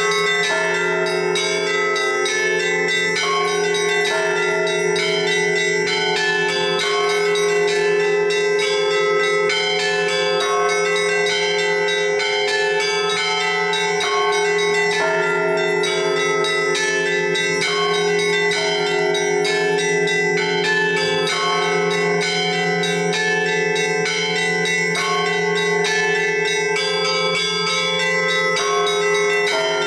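Orthodox church bells ringing together in a continuous peal: small bells struck rapidly in repeating patterns over the steady sound of larger, lower bells.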